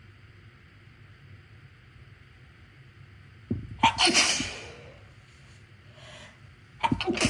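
Two sneezes from a person with a cold, brought on deliberately by tickling the nostril. The first comes about halfway through; the second starts near the end.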